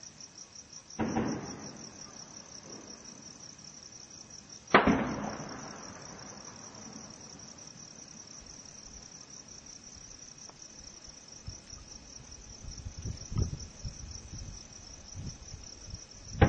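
Distant gunfire in a night firefight. Two loud shots, about a second and about five seconds in, each echo and die away, then a run of fainter pops near the end, another sharp shot at the very end. Steady cricket chirping runs underneath.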